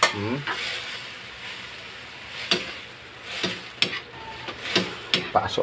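Metal spatula stirring and scraping mung beans frying in oil in a steel wok, with a sizzle that thins after the first second and several short scrapes and taps of the spatula against the pan.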